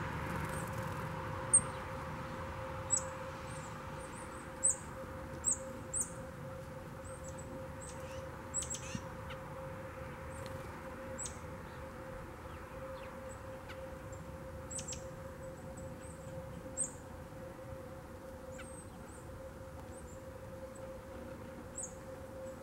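Small songbirds giving short, high-pitched chip calls, scattered irregularly and most frequent in the first half, over a faint steady hum.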